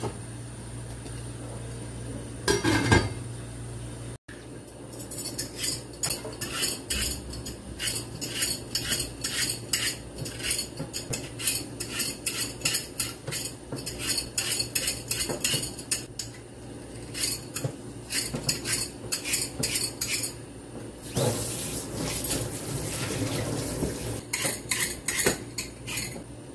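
Metal vegetable peeler scraping the skin off lotus root over a stainless steel sink, in quick rhythmic strokes of about two or three a second. One short loud clatter comes about three seconds in.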